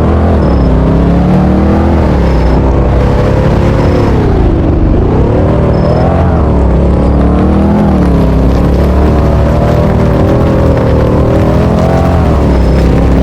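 Fire siren sounding, loud, its pitch wavering up and down unevenly, over a steady low rumble.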